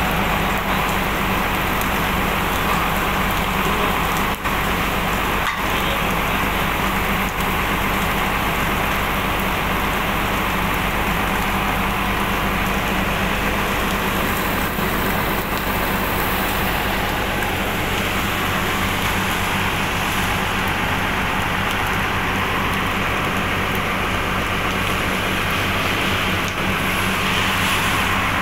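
Steady rain falling, a constant hissing wash, with a steady low motor hum under it that does not change.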